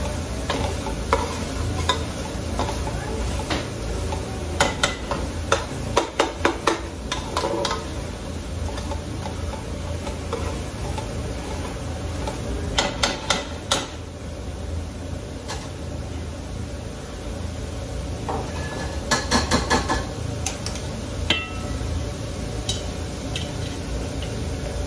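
A slotted spoon stirring a simmering masala in a large metal pot, scraping and knocking against the pot in several short runs of quick taps over a steady sizzle.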